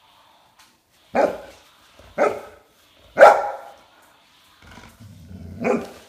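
Golden retriever barking: three single barks about a second apart, the third the loudest, then a fourth after a pause of about two seconds.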